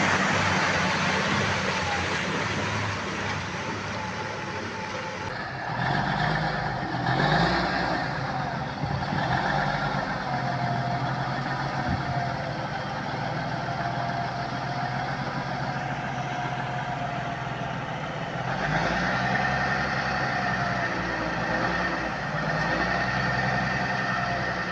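Heavy truck engine running under load in deep mud, its note rising and falling. The sound changes abruptly about five seconds in.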